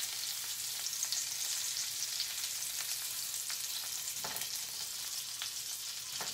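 Shrimp sizzling in butter in a frying pan: a steady crackling hiss. A few light clicks of metal tongs against the pan, the clearest about four seconds in and another near the end.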